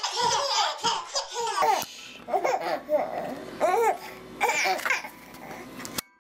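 Babies laughing in short, repeated bursts. About two seconds in, a cut switches to another pair of babies laughing.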